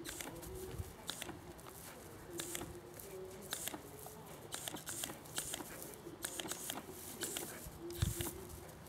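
Two kelpie-collie cross sheepdogs running about on grass: irregular short scuffs and rustles, with one low thump about eight seconds in.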